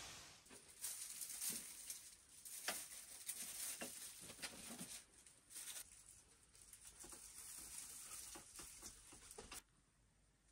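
Dry garlic stalks and papery bulb skins rustling and crackling in faint, irregular clicks as bunches of cured garlic are handled and hung up; the crackling stops suddenly near the end.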